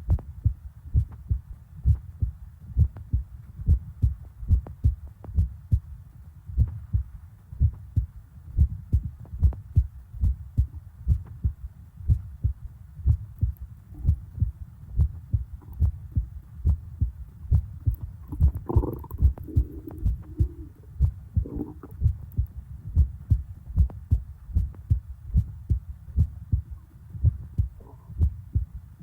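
A person's heartbeat heard close up, a steady train of low double thumps. About two-thirds of the way in, stomach gurgles rise over it for a few seconds, with a faint one near the end.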